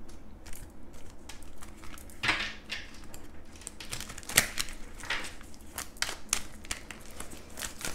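Tarot cards being handled and shuffled: a run of irregular light clicks and papery rustles, with a sharper snap about four and a half seconds in.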